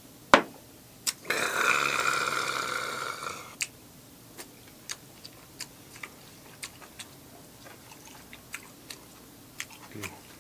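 A shot glass clacks down on the table, then a long hissing exhale of about two seconds follows the shot of liquor. After that come light, irregular clicks of wooden chopsticks on the plate, with chewing.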